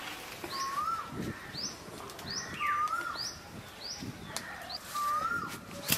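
Birds calling in the trees: a quick run of short rising chirps, and a lower whistled note that rises then dips, three times about two seconds apart. Under them, soft rustling of branches and leaves as a man climbs a drumstick tree, and one sharp crack near the end.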